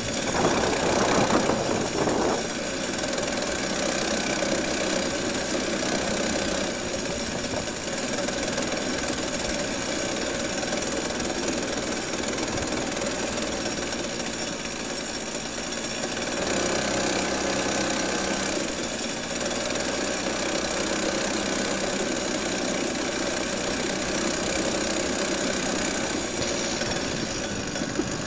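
Comer two-stroke kid kart engine running at a steady, modest throttle, heard close up from a camera mounted on the kart. The engine note eases off and gets quieter near the end as the kart slows.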